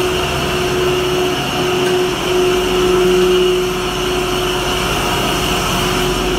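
Cider-mill machinery running with a steady mechanical drone and a constant hum, a little louder about three seconds in.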